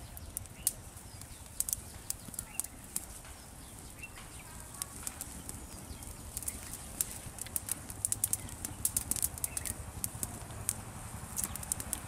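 Open wood fire crackling: irregular sharp pops and snaps from burning twigs, coming thicker in the middle of the stretch, over a steady low rumble.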